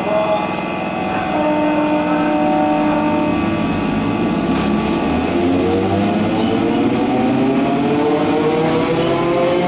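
EMU local train rolling past with its electric traction motors whining in several tones. The whine rises steadily in pitch over the second half, with a few sharp clicks from the wheels.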